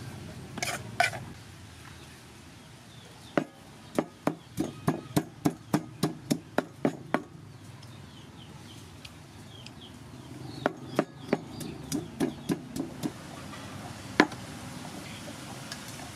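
Two runs of sharp wooden knocks at about three a second, the first lasting nearly four seconds and the second about two seconds, followed by one louder single knock.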